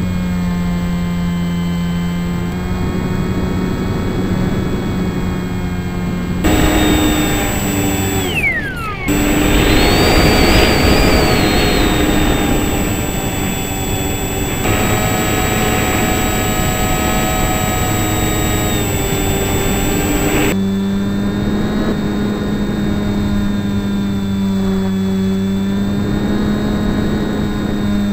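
Onboard sound of an RC model plane's motor and propeller: a steady droning tone whose pitch shifts up and down with the throttle, with wind rushing over the camera. About eight seconds in, a quick falling whistle and a brief dropout come before a louder, rougher stretch.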